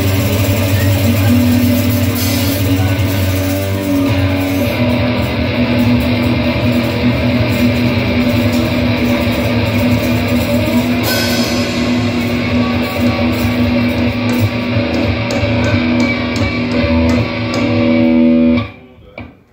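A live rock band playing an instrumental passage, electric guitars and bass guitar over drums. The music breaks off suddenly about a second before the end.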